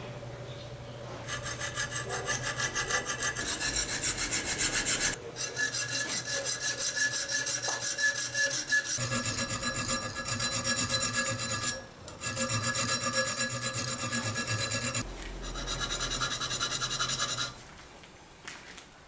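Needle file rasping across the spine of a 5160 spring-steel knife blade in quick, even back-and-forth strokes. The filing comes in runs broken by short pauses and stops shortly before the end.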